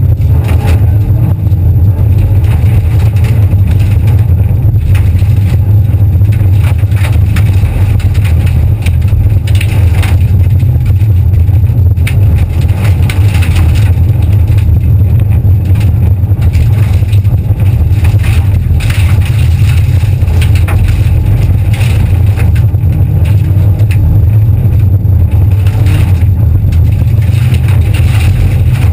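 Rally car engine running hard, loud and steady, heard from inside the cabin, with gravel crackling and pinging against the car as it speeds along a loose dirt stage.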